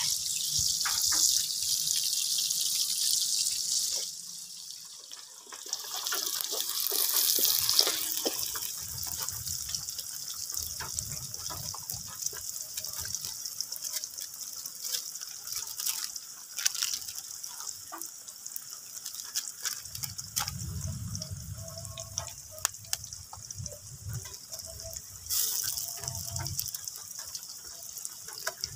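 Hot cooking oil sizzling and spattering in a wok, first with battered catfish pieces deep-frying, later with chopped garlic, scallions and chili frying. A loud hiss for the first few seconds thins into a steady crackle of small pops, with another loud burst of sizzling near the end.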